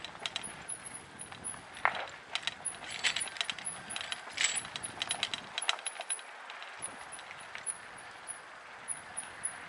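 Mountain e-bike rolling over a rough dirt trail: irregular clusters of sharp clicks and rattles from the bike jolting over stones and ruts, over a low rumble of tyres on dirt.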